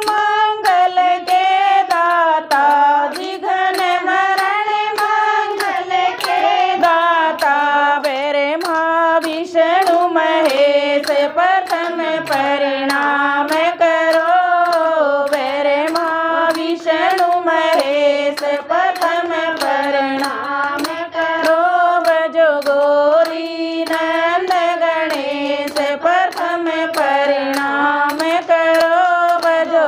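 A group of women singing a Haryanvi Ganesh bhajan together, with hand claps keeping a steady beat.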